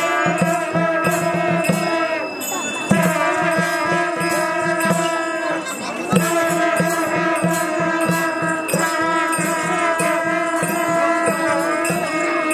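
Traditional Newar ensemble music for a masked deity dance: a double-headed barrel drum beats quick, regular strokes under a long-held melodic line that pauses briefly every few seconds.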